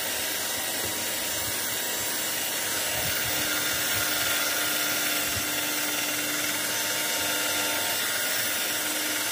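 Cordless drill running steadily at constant speed, spinning a small bit inside an electric fan motor's end housing to scour hardened gummed residue out of the sleeve-bushing seat.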